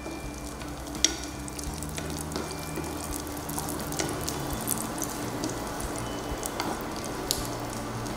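Cashews and raisins frying in hot ghee in a nonstick pan: a steady sizzle with scattered sharp crackles and pops.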